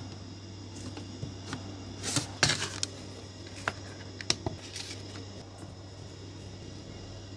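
Small handling sounds on a workbench: a cluster of short scrapes and knocks about two seconds in, then a few separate sharp clicks, over a steady low hum.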